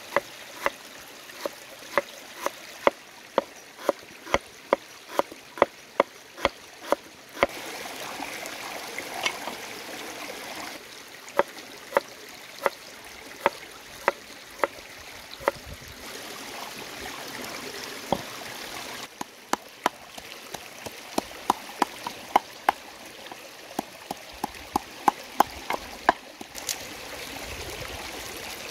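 Cleaver chopping on a thick wooden chopping board: sharp knocks about two a second, in runs with pauses, as lemongrass stalks are sliced, over the steady rush of a shallow stream.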